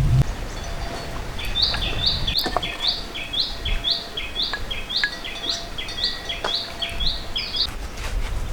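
A bird singing the same short phrase over and over, about two a second, each a high note falling to a lower one. The song starts after about a second and a half and stops shortly before the end, with a few faint clicks around it.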